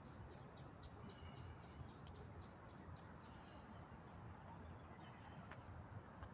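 Birds chirping faintly, with a quick series of short chirps for about the first half and scattered chirps after, over a low wind rumble on the microphone.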